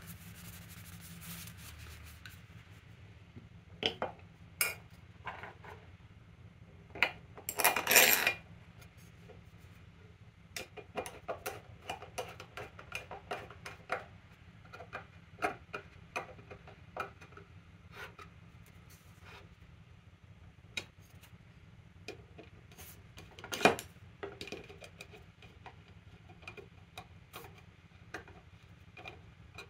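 Metal clinks and taps as a tote is fitted to a Stanley No. 5 hand plane and its brass tote bolt is driven down with a screwdriver, after a moment of cloth rubbing. There is a cluster of louder knocks about eight seconds in, many light ticks after it, and one sharp knock a little past twenty-three seconds.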